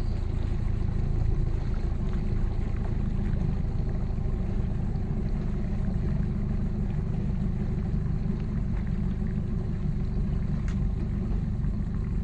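Mercury 60 hp outboard motor on a center-console skiff running steadily at low speed, a deep even rumble.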